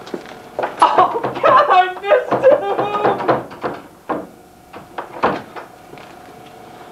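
A man's voice making wordless sounds for about three seconds, then several short knocks or thunks, over a faint steady hum.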